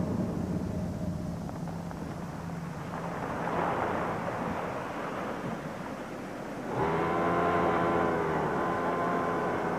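A lorry's engine runs with a low hum, then waves wash over a rocky shore. About seven seconds in, an industrial sewing machine starts with a sudden, steady whine.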